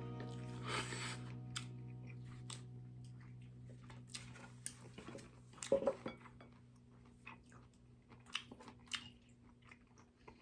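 A person eating, with crunchy bites and chewing and many short clicks, over a held music chord slowly fading out.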